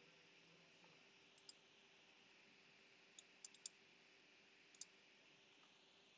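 Near silence with a few faint computer mouse clicks: one about a second and a half in, a quick run of three a little past three seconds, and one more about a second later.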